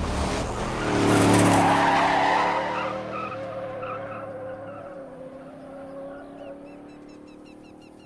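A classic Corvette Stingray's V8 engine revving hard as the car slides sideways through a skid on dirt, loudest about a second or two in. The engine then carries on at a steady pitch, fading away as the car drives off into the distance.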